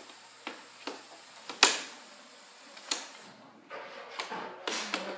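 Hard plastic clicks and knocks as attachments are fitted onto a Nerf Modulus toy blaster, four separate clicks with the sharpest snap about a second and a half in, followed near the end by rustling handling of the plastic.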